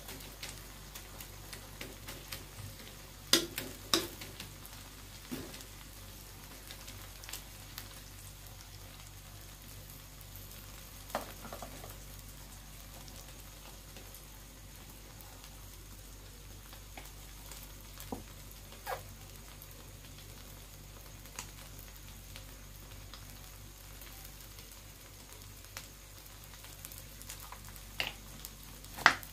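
An egg and vegetable omelette frying in a wok: a steady sizzle, with a few sharp clicks and knocks, the loudest about three and four seconds in and near the end.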